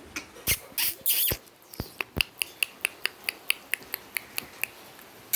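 A few sharp clicks and a short rustle, then a rapid even run of sharp clicks, about five a second, that fades out.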